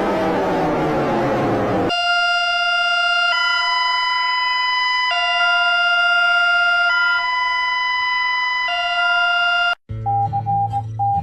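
Electronic emergency alert alarm tones: a falling, siren-like glide that ends about two seconds in, then steady piercing tones that alternate between two pitches every second and a half or so. These cut off sharply near the end, and a pulsing electronic beep over a low synth drone begins.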